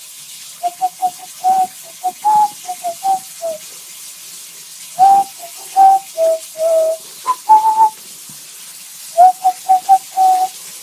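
A person whistling a low tune in short, quick notes, in three phrases with pauses between them.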